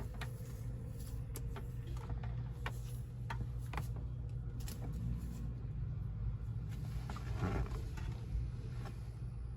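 Scattered light clicks and rustling of cables and twist ties being handled and fastened, over a steady low hum, with a longer rustle about seven and a half seconds in.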